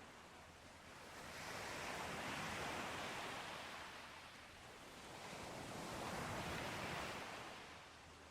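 Sea waves breaking and washing on a shore: two slow swells of surf, one rising about a second in and a second about five seconds in, each fading away.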